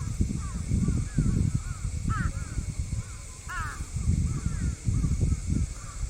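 Birds calling over and over, with a few stronger calls about two and three and a half seconds in, over an irregular low rumble.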